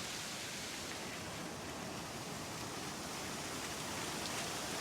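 Steady hiss-like background noise, rising a little in level near the end.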